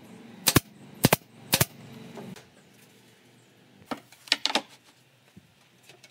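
Pneumatic nail gun firing three times about half a second apart, each shot a sharp double crack, driving nails into a timber frame. Around four seconds in, a few softer wooden knocks as boards are set down on a wooden tabletop.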